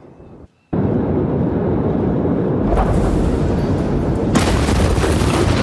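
Sound of the 2020 Beirut port explosion as caught in amateur footage: a sudden loud rumbling roar starts about a second in and holds, turning harsher and hissier about four seconds in.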